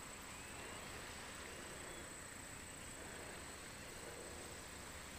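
Faint summer outdoor ambience: a steady, high-pitched insect drone over light background hiss.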